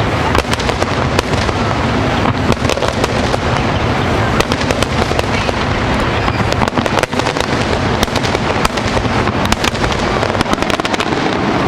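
Fireworks finale: a dense, continuous barrage of shell bursts and crackle, with many sharp reports close together.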